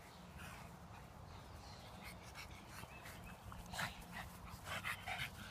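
A Boston terrier and a pug playing over a tennis ball, making faint short breathy noises with a few louder ones in the second half.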